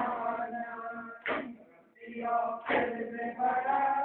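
Men chanting a noha, a Shia lament, in unison. Sharp chest-beating slaps of matam come about once every second and a half, in time with the chant.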